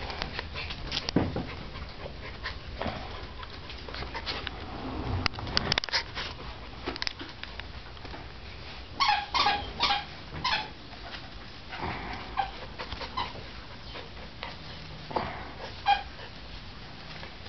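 Miniature schnauzer puppies playing, giving short high yips and whimpers: a quick run of four or five yips about nine seconds in and a few single ones later. Light knocks and scuffles run underneath.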